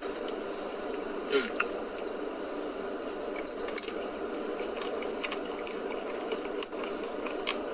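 A steady buzzing hum with scattered light clicks, as a spoon digs into a Dairy Queen Blizzard cup and he takes a bite. There is a short murmured "mm" about a second and a half in.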